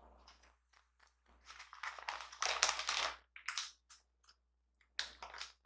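Plastic food packaging being handled: the empty sauce sachets and a bag of shredded cheese rustle and crinkle in short bursts. The rustling is loudest two to three seconds in, with a few sharp crackles about five seconds in.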